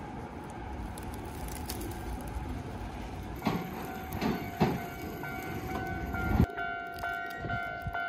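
Wind on the microphone while cycling, then a Japanese level-crossing alarm bell starts about halfway through, ringing in even strokes about twice a second. A commuter train passes the crossing with a rumble and a few knocks, the rumble stopping shortly before the end.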